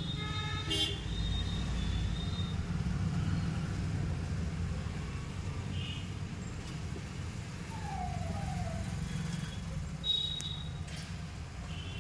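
Steady low traffic rumble with short high-pitched vehicle-horn toots, one about a second in and another near the end.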